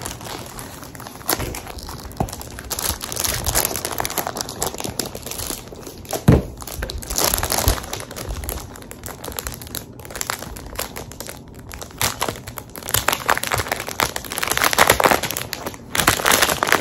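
Clear plastic wrap crinkling and crackling as a planner folio is handled and unwrapped, with a single knock about six seconds in.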